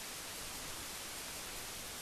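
Steady hiss with no other sound: the noise floor of an archival newsreel film transfer with no live soundtrack.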